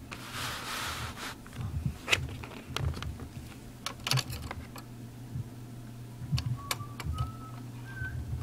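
Sharp metal clicks and clacks as the CPU socket's steel load lever is unhooked and the retention plate is lifted on an LGA1366 motherboard, over a steady low hum. Near the end someone whistles a few short notes, each a step higher than the last.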